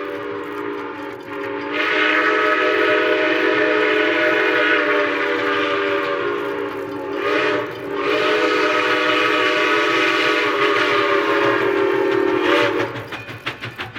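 Grand Trunk Western six-chime steam whistle on a steam locomotive, sounding a long chord of several tones. It swells louder about two seconds in, dips briefly about halfway, sounds again and cuts off near the end. A quick regular clatter follows.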